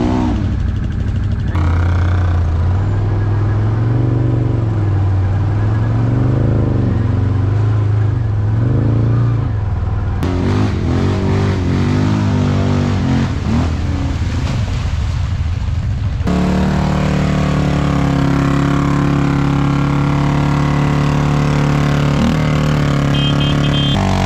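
Quad bike engines revving up and down in repeated surges, in several short cuts. From about two thirds of the way in, one engine holds steady high revs while the quad sits bogged in deep mud.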